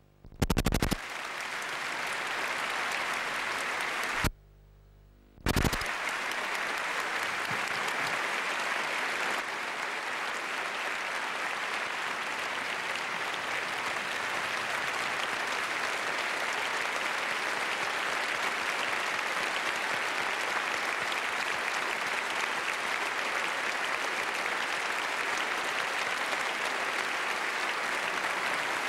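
Large audience applauding, a dense and steady clapping. It drops out briefly a little over four seconds in.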